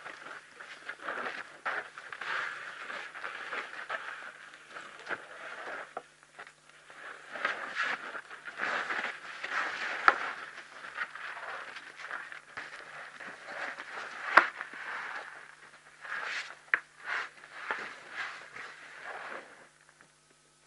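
Two African elephants sparring: irregular scuffing and crackling as they shove and shift on dry ground, with sharp clacks about ten and fourteen seconds in as their tusks knock together. It dies away near the end.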